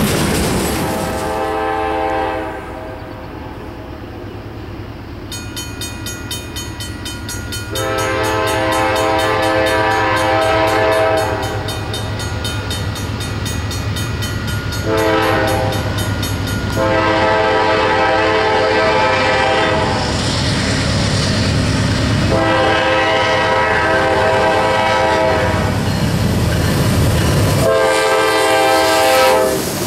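Norfolk Southern diesel freight locomotive's multi-note air horn sounding several long blasts as the train approaches, over the low rumble of the engine and train.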